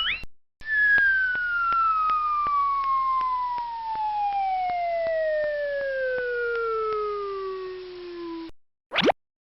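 Cartoon falling-whistle sound effect: one long whistle tone gliding steadily down in pitch for about eight seconds, then cutting off suddenly. A short rising chirp comes just before it, and a quick upward zip near the end.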